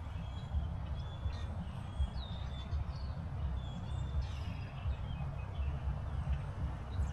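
Birds chirping in short calls, several times a few seconds apart, over a steady low rumble.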